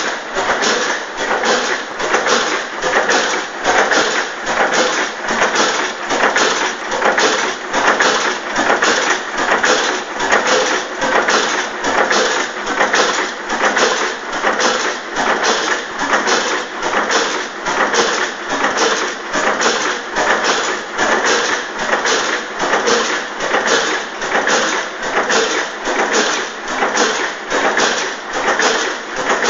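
Richard Hornsby Akroyd hot bulb oil engine of a 20 hp tractor running steadily, with an even mechanical clatter of about two to three beats a second from its valve gear and exposed gearing.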